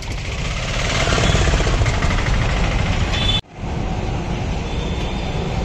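Street traffic noise with an engine running steadily. The noise drops out abruptly for a moment about three and a half seconds in.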